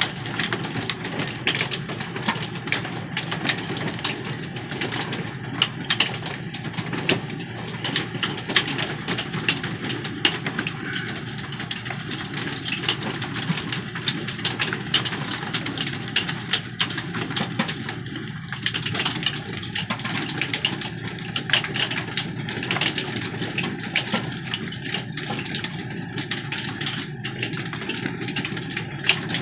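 Rain and hail pelting an RV's roof: a steady rush of rain with many sharp, irregular ticks of hailstones striking.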